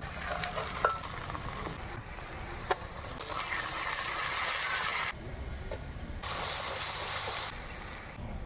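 Onions sizzling as they fry in hot oil in a steel karahi, stirred with a wooden spatula that knocks against the pan a few times. The sizzle cuts out abruptly about halfway through and comes back a second later.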